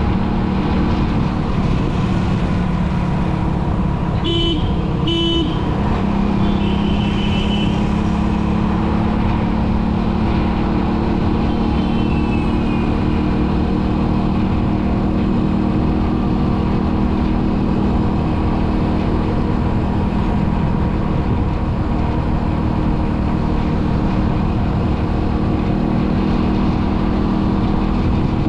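Steady engine and road noise from a vehicle travelling along a highway in traffic, with two short horn toots about four and five seconds in.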